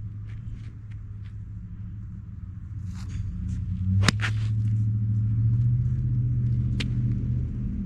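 A golf iron striking a ball once, a sharp crack about four seconds in, with a fainter click near the end, over a steady low rumble.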